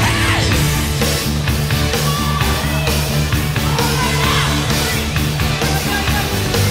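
Loud rock music with a steady driving beat.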